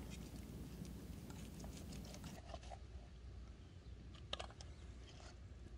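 Faint handling sounds of fish cleaning: a scatter of light clicks and taps as a knife and fish are moved on a plastic cutting board, with one sharper click about four seconds in as the fillet knife is laid down.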